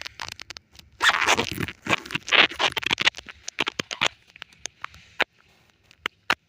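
2003 Toyota Corolla rear drum brake shoes and metal hardware scraping and clicking as they are pushed and worked into place. There is a dense run of scraping from about one to three seconds in, then scattered sharp clicks.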